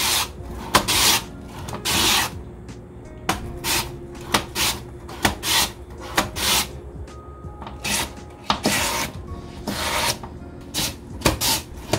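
Peeled old yellow cucumber (nogak) pushed repeatedly across a plastic mandoline slicer's blade, julienning it into a steel bowl: a string of irregular scraping slice strokes, one to two a second.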